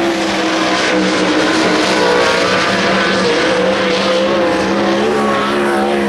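Sprint car engines running loudly and steadily, several engine notes held at a near-constant pitch with slight wavering.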